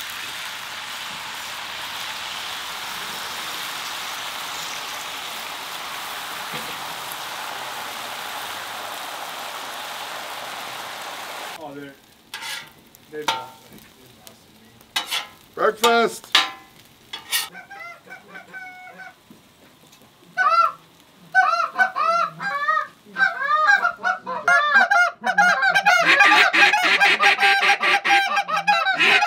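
Beaten eggs sizzling on a hot flat-top griddle in a steady hiss that cuts off suddenly. After a few knocks, hand-blown goose calls start up in short honks and grow faster and louder near the end.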